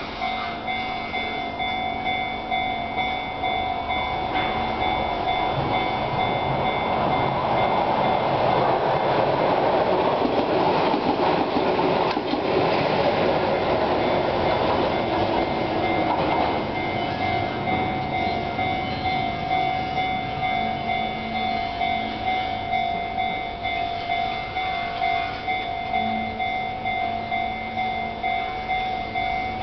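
Japanese level-crossing warning bell ringing in a steady, repeating rhythm as a Keihan train passes over the crossing; the train's rumble and rail noise build up, peak mid-way and die away about two-thirds through, while the bell keeps ringing.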